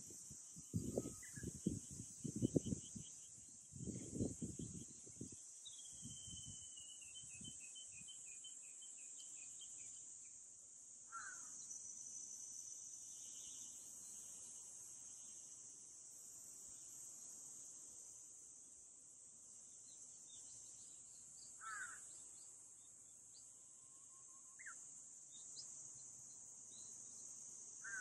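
Summer cicadas droning steadily in a high, even hiss, with scattered bird calls over it: a quick descending series of chirps about six seconds in, and a few short, harsh caw-like calls later on. In the first five seconds a run of low, muffled thumps is louder than everything else.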